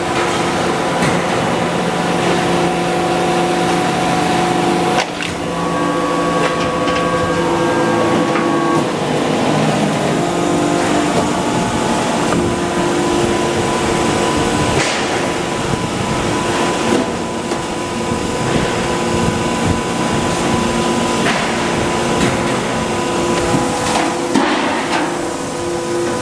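Hydraulic press forming stainless steel sink bowls, with its machinery running as a steady hum with several pitches. The hum is broken a few times by sharp metal knocks and clanks.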